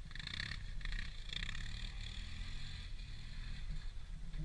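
Distant off-road vehicle engine running over a steady low rumble.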